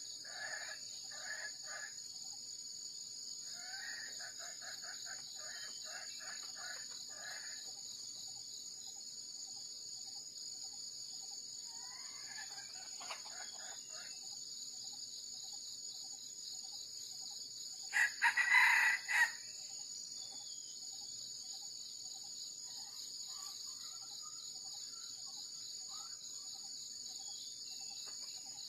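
Red junglefowl rooster crowing once, a loud call of a little over a second about two-thirds of the way through, over a steady high-pitched insect drone. Shorter runs of repeated clucking calls come in the first several seconds.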